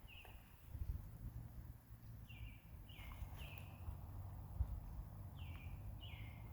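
A bird calling short falling notes, two or three in quick succession, repeated about three seconds later. Under it a faint low rumble, with a soft thump about four and a half seconds in.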